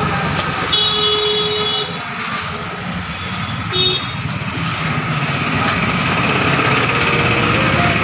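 Steady street traffic with a vehicle horn sounding twice: a toot of about a second near the start and a short toot about halfway through.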